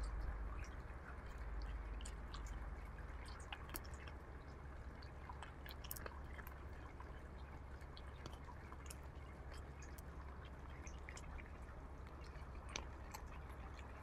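Raccoon eating dry kibble from a hand: faint, irregular crunching and clicking of its chewing, over a low steady rumble.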